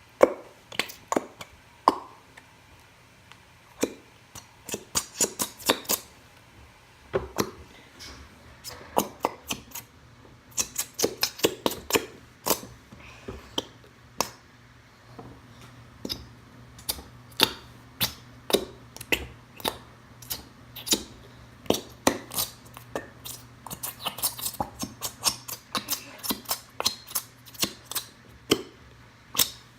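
Irregular clusters of sharp taps and clicks: a plastic glue bottle being knocked and squeezed against a bowl to get the last of the glue out, with a faint steady hum underneath.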